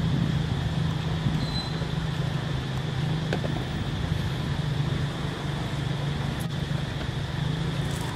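A steady low mechanical hum over constant outdoor background noise, with a brief high chirp about a second and a half in.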